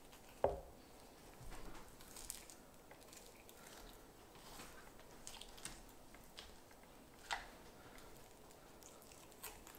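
Quiet, wet sounds of a boning knife cutting venison away from the leg bone and sliding along it, with a sharp knock about half a second in and another a little past the middle.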